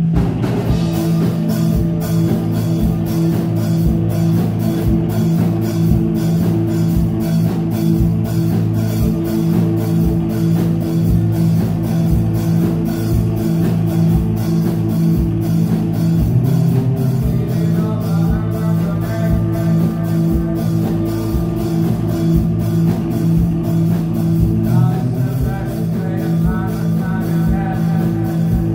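Live rock band playing: electric guitars over a drum kit keeping a steady beat. A voice sings in the second half.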